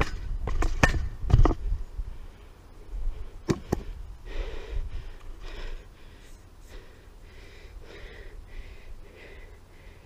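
A few sharp knocks and thumps in the first two seconds and one more near the middle, then a person breathing hard in short breaths in quick succession.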